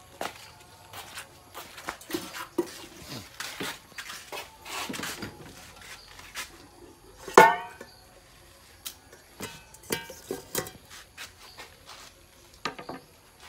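Kitchenware being handled: scattered knocks and rustles of pots, dishes and a wicker basket of leafy greens, with one much louder ringing knock about seven seconds in.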